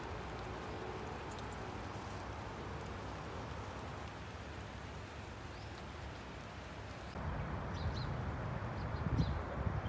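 Steady hiss of rain falling on wet pavement and leaves. From about seven seconds in, wind gusts rumble on the microphone.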